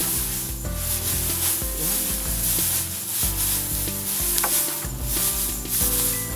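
Dry rice straw rustling and crunching in repeated swishes as bundled rice is trodden underfoot and stirred with a bamboo pole during foot-threshing. Music plays underneath.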